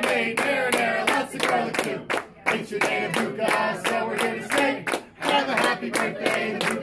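A group singing a restaurant's birthday song together, with hands clapping along in a steady beat, about two to three claps a second.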